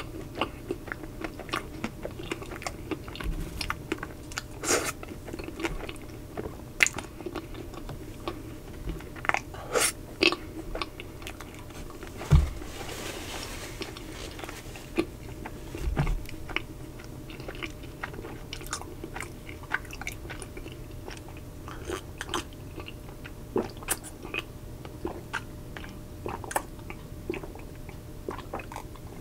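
Close-miked chewing of a Magnum double sea salt caramel ice cream bar, its chocolate shell crunching in irregular, crisp crackles along with wet mouth sounds. A low thump comes about twelve seconds in and another about sixteen seconds in.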